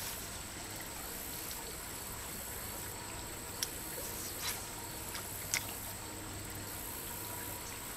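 Quiet creek-side ambience: a steady faint hiss with a thin high insect drone, broken by two brief sharp clicks about three and a half and five and a half seconds in.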